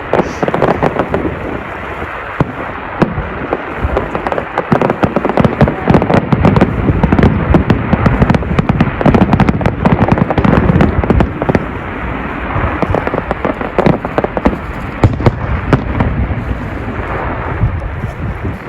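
Fireworks display: a dense, continuous run of bangs and crackling bursts.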